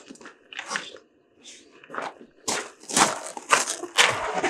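An old Hayward pool pump being worked loose and lifted off its concrete slab: a few light knocks, then a quick run of rough scrapes and clunks in the second half.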